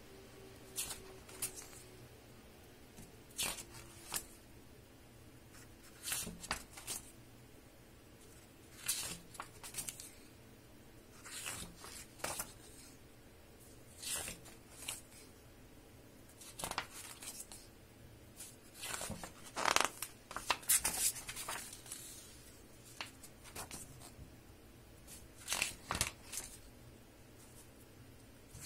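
Pages of a large hardcover book being turned by hand: a string of short paper rustles and swishes, one page after another, with a few louder ones about two-thirds of the way through.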